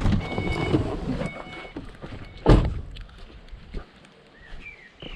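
Rustling and knocking, then one heavy thump about two and a half seconds in; birds chirp near the end.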